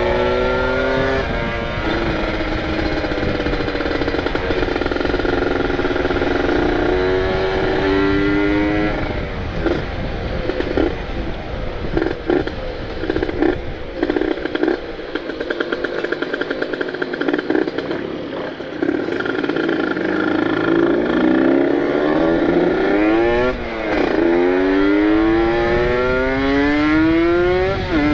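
Kawasaki Ninja 150 RR's ported two-stroke single-cylinder engine under way on a break-in ride. It pulls at high revs with drops at gear changes, runs low, choppy and uneven for several seconds in the middle, then revs up through the gears twice, the pitch rising each time.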